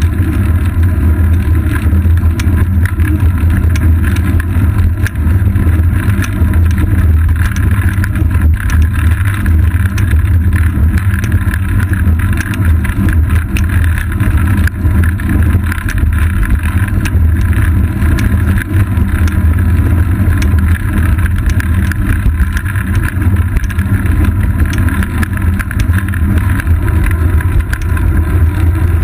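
Wind and road vibration picked up by a seat-post-mounted GoPro Hero 2 in its housing on a moving road bike: a steady low rumble with frequent small clicks and rattles from the bumps in the asphalt.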